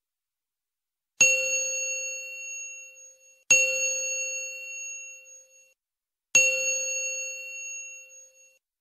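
A bell-like metal chime struck three times, about a second in, then two and a half seconds later and again three seconds after that; each strike rings out and fades over about two seconds.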